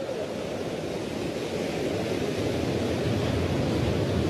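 Sea surf and wind: a steady rushing noise that grows louder and deeper about two seconds in.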